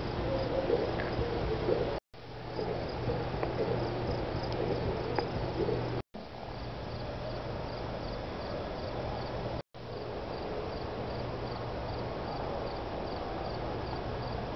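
Outdoor field ambience: insects chirping in a faint, even pulse high in pitch, over a steady low hum and a rough noisy background. The sound cuts out abruptly three times for a split second.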